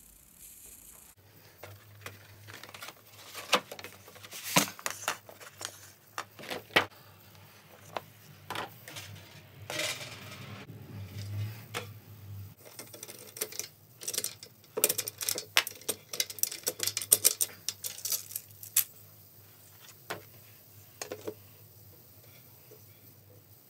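Metal clicks and clinks of a Yamaha Stage Custom snare drum being re-headed: the hoop, tension rods and drumhead being handled and set down on the shell. A brief scraping rustle comes about ten seconds in.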